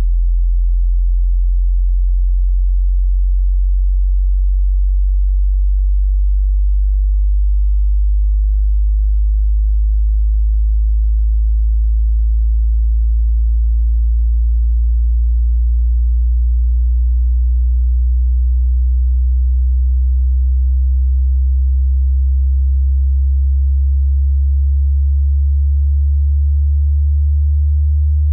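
Pure sine test tone from a hearing-test frequency sweep. It is very low in pitch and climbs slowly from below 50 Hz to near 100 Hz.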